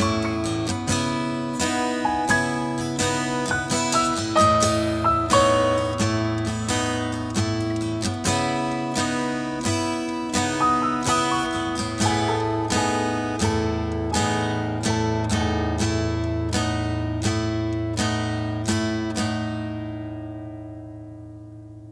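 Acoustic guitar playing an instrumental outro, plucked notes about two a second over a held low note, dying away near the end.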